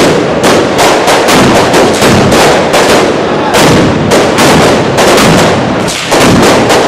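A rapid, unbroken string of very loud firecracker bangs, several a second, going off at street level amid thick smoke.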